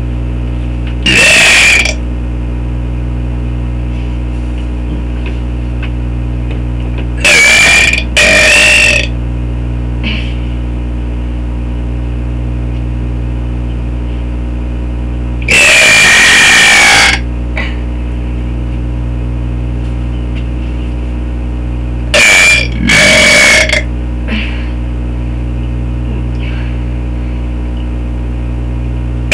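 A kid letting out a series of very loud, drawn-out belches: six in all, spaced several seconds apart, two of them in quick pairs, the longest about a second and a half. A steady loud hum runs underneath.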